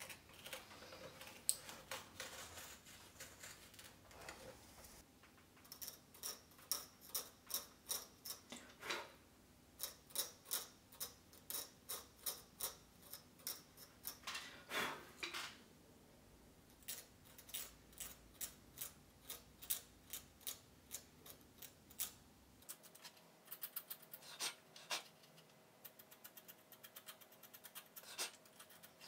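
Hobby knife scraping and carving soft cuttlefish bone: runs of short scratchy strokes, a few a second, as channels are cut into the bone mould.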